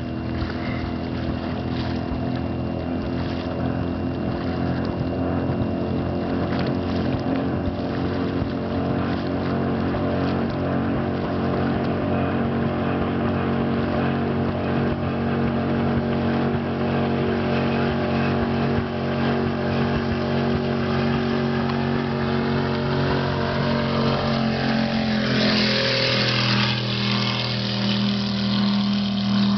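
Powerboat engine running steadily at speed, its drone mixed with the rush of water and wind. About 25 seconds in the engine note dips and changes pitch, with a brief loud rush of water noise, then settles into a new steady drone.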